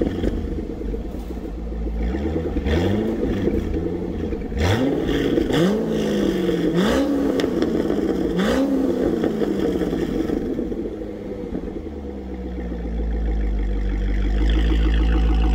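Chevrolet C6 Corvette's 6.0-litre LS2 V8, warmed up, blipped about six times in quick succession, each rev rising and falling back. It then settles into a steady idle.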